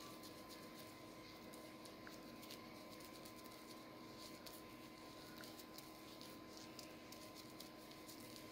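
Near silence: a faint steady hum, with soft scattered rubbing ticks from a cotton pad wiped over the eyelid.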